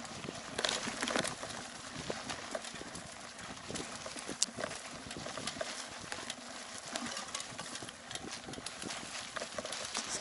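Mountain bike riding over a leaf-strewn forest trail: tyres on leaves and dirt, with irregular clicks, knocks and rattles from the bike jolting over the bumps.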